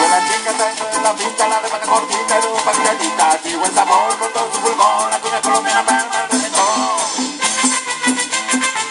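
Live cumbia band playing a dance tune: a fast, steady rattling percussion beat over a wavering melody line and a repeating bass pattern.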